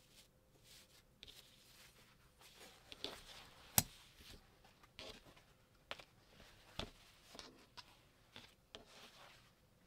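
Small craft items being handled on a tabletop: soft rustling broken by several light clicks and taps, the sharpest about four seconds in.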